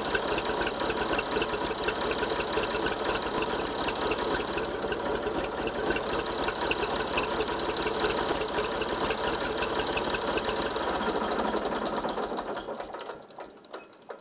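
Ursus 3514 tractor's diesel engine idling with a steady, fast, even clatter, then shut off near the end, leaving a few faint ticks.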